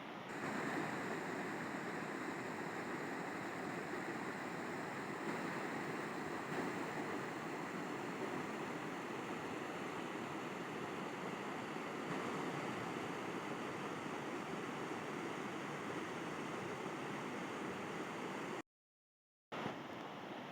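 River water rushing and burbling in a steady, even stream. It steps up louder just after the start, and near the end it drops to dead silence for about a second before the flow resumes a little quieter.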